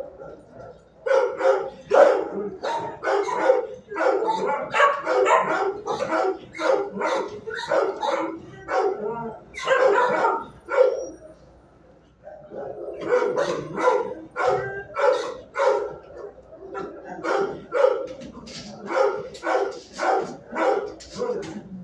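Kennelled shelter dogs barking over and over, many barks in quick succession, with a short lull a little past the middle.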